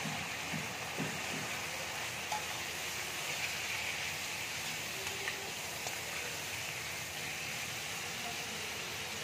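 Fish head and spice paste frying in hot oil in a wok, with a steady sizzling hiss and a few light scrapes of the metal spatula as it is stirred.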